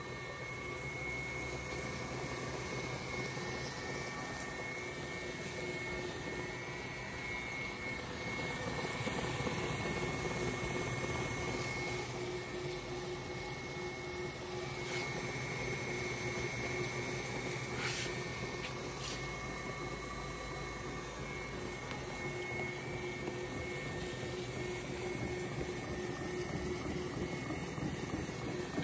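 Sanwa MKS 200S label counting and rewinding machine running, its winding-shaft motor giving a steady hum and a high whine as the label strip winds from reel to reel.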